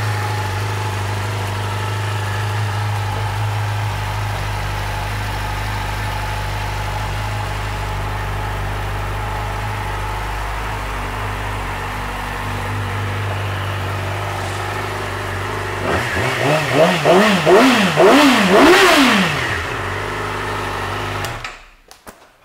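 2012 Yamaha YZF-R6's 600 cc inline-four idling steadily on its stand. About three-quarters of the way in it gives a run of quick throttle blips, the revs rising and falling several times. It settles back to idle and is switched off shortly before the end.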